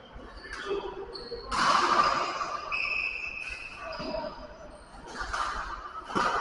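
Badminton rally: rackets striking the shuttlecock several times, with sports shoes squeaking briefly on the court floor and voices echoing in a large hall.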